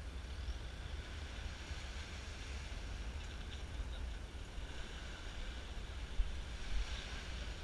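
Wind buffeting the camera's microphone: a steady low rumble under a faint, even hiss.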